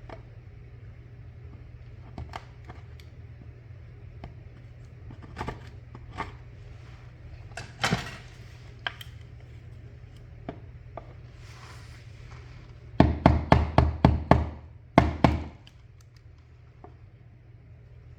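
A chisel chipping at the wall around a recessed outlet box: scattered light knocks, then a quick run of about eight sharp strikes some thirteen seconds in, and two more just after.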